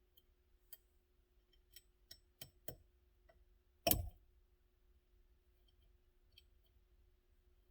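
Hand tools and steering-wheel parts being handled: a few light clicks in the first three seconds, then one louder knock about four seconds in.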